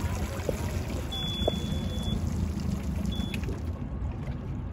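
Wind rushing over the microphone and water lapping on the water. A thin, steady high beep sounds for about a second, starting about a second in, and a shorter one comes just after three seconds.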